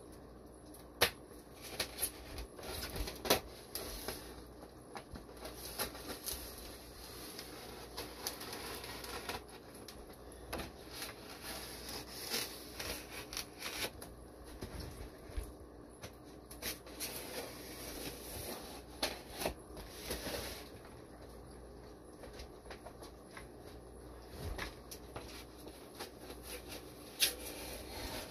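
Packaging being handled as a shipping box of live fish is unpacked: irregular rustling and crackling with many sharp clicks and knocks, the loudest a second or so in and again a few seconds later.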